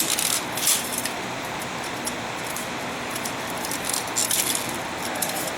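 Loose small pieces of stainless steel clinking and jingling against each other as they are sifted through by hand, with a few sharp clinks near the start and more about four seconds in, over a steady hiss.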